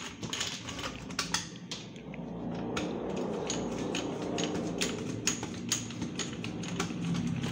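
Irregular sharp clicks and small rattles of plastic and metal parts being handled as an LED TV's back cover is taken off to reach the board, over a low background rumble that grows louder from about halfway.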